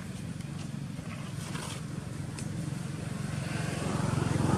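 A motor vehicle's engine running with a steady low hum, growing louder toward the end.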